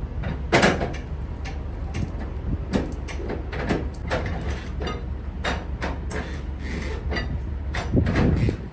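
Irregular metallic clicks and clanks from flatbed cargo-strap winches being tightened, over a steady low rumble. The sharpest knocks come about half a second in and again near the end.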